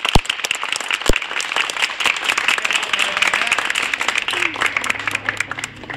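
Studio audience applauding, the clapping thinning out near the end, with a couple of sharp knocks early on.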